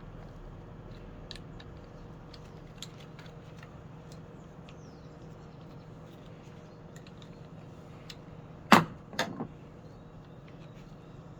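Light clicks and taps of hand work on a plastic washing-machine water inlet valve, with three sharp knocks in quick succession, the first the loudest, a little after two thirds of the way through.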